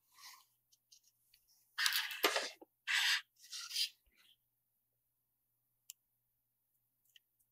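Small circuit boards handled by hand: three short bursts of rubbing and scraping about two to four seconds in as a Kingston mSATA SSD is fitted against its mSATA-to-SATA adapter's socket, with a few faint clicks before and after.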